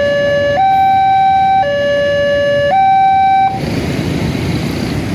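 Railway level-crossing siren alarm sounding a two-tone alternating wail, switching between a lower and a higher tone about once a second. It cuts off suddenly about three and a half seconds in, leaving the noise of passing vehicles.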